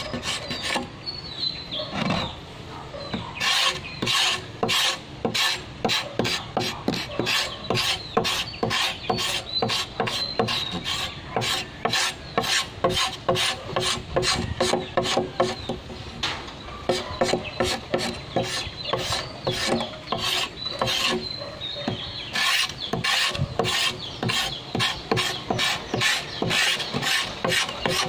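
A large knife blade scraping the green outer skin off a bamboo pole in quick, rhythmic strokes, about three a second, with a short pause about two seconds in.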